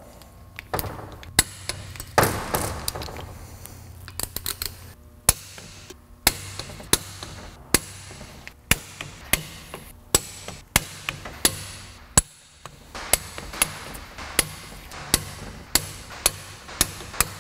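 Click-type torque wrench snapping sharply again and again, roughly once every half second to second, as the differential's rear cover bolts are brought to 25 foot-pounds. There is rougher tool-handling noise in the first few seconds before the clicks begin.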